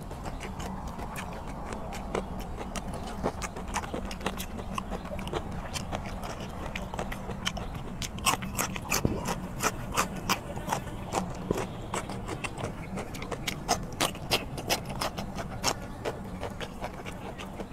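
Close-up crunching and chewing of a raw yardlong bean: sharp, crisp crunches, thicker and louder through the second half.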